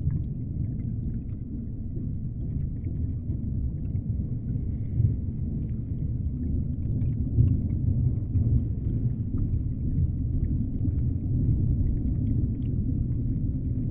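Deep-ocean underwater ambience: a steady low rumble, with faint scattered clicks and crackles above it.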